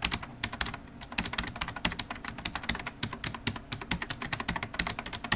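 Typing on a computer keyboard: a quick, steady run of key clicks.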